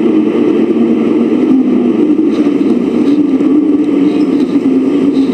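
A deep, steady drone with a slightly wavering pitch and a rushing, wind-like sound over it, likened to wind through a forest. The listeners could not find its source and take it to come from the sky.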